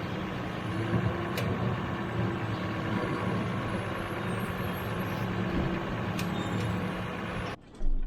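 Heavy diesel engine of farm machinery running steadily with a constant hum. It cuts off abruptly near the end, followed by a brief thump.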